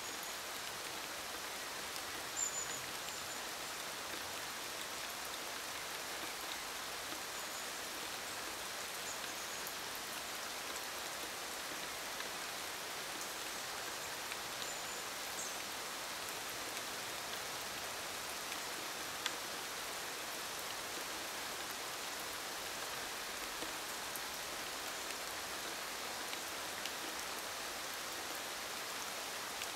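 Gentle summer rain falling on leaves, a steady hiss with scattered drop ticks. A few short, high bird chirps come now and then.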